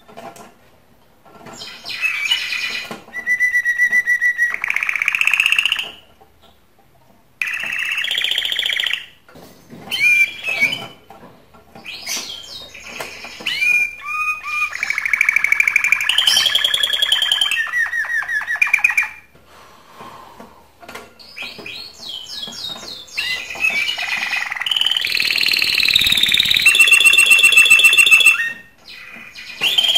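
Male domestic canary singing its breeding song, the excited song of a bird in breeding condition: phrases of rapid high trills and rolls, broken by short pauses, loudest near the end.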